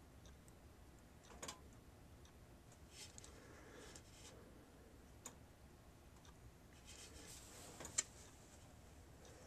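Near silence with faint scraping as thermal paste is spread over a Pentium 4 processor's metal lid with a thin tool, and a few small clicks. Near the end there is a soft rustle and one sharper click.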